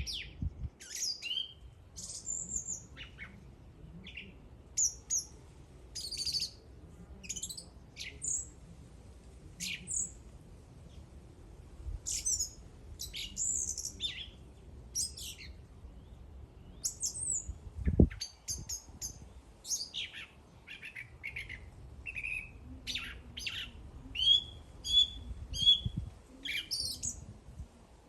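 A bird singing: a long run of short, high chirps and whistled notes with a brief lull partway through. A single dull thump about two-thirds of the way in is the loudest sound.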